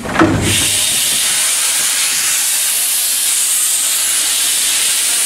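Steam locomotive venting steam from its cylinder drain cocks: a loud, steady, high hiss that bursts on suddenly about half a second in and holds unchanged.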